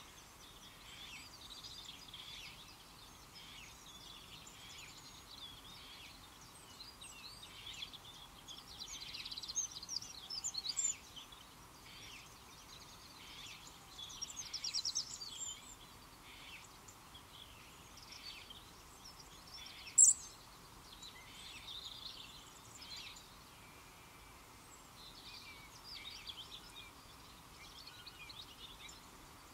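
Wild songbirds chirping and calling, many short high calls repeated over a faint steady background hum. A couple of louder rapid trills come about a third and halfway through, and one sharp, much louder high call comes about two-thirds through.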